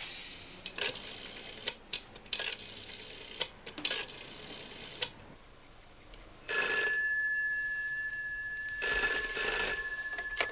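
A rotary telephone dial pulled round and clicking back several times, then a white rotary telephone's bell ringing twice, the second ring about two seconds after the first. The ringing stops near the end as the receiver is picked up.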